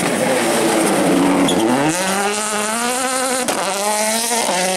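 Ford Fiesta WRC rally car's 1.6-litre turbocharged four-cylinder engine pulling hard away from a corner, its pitch climbing steadily. It upshifts about three and a half seconds in and again near the end, the pitch dropping and climbing once more each time.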